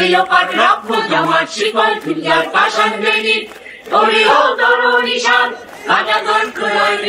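A large crowd of protesters chanting slogans together in rhythmic phrases, with short breaks between phrases about three and a half and six seconds in.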